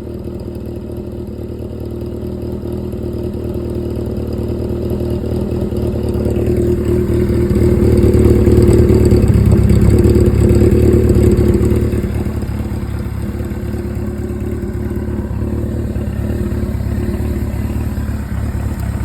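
Suzuki GS750 air-cooled inline-four running through Tokyo Tekkan machine-bent exhaust pipes with a Nankai Buhin Tokushima baffle, at a steady idle. The exhaust note grows louder and fuller from about six seconds in, then eases back near twelve seconds.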